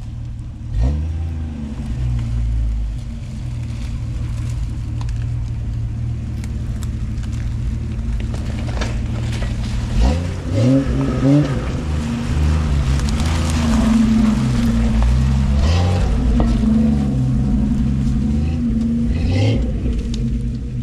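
1997 Jeep Wrangler TJ's engine running and revving under load as it drives through a shallow creek, with the revs rising sharply about a second in and again around ten seconds in, and water splashing around the tyres at that point. It then runs on steadily as the Jeep pulls up the trail.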